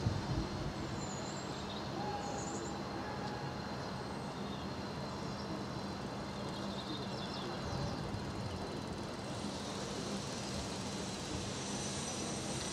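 Saddle-tank steam locomotive standing in steam, with a steady hiss and low hum under general harbourside background noise. About nine seconds in, a louder, higher steam hiss starts and holds.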